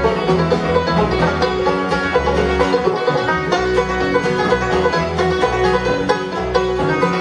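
Live bluegrass music: two five-string banjos picking together over acoustic guitar, the notes dense and steady throughout.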